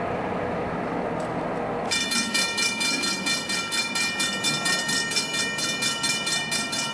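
A train running by on the rails. About two seconds in, a set of high metallic tones starts suddenly and pulses rapidly over the rumble.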